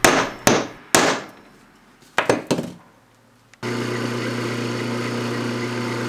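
Spring-loaded automatic center punch snapping onto a small metal drag pawl: five sharp metallic strikes that ring briefly. About three and a half seconds in, a steady drill press motor hum comes in.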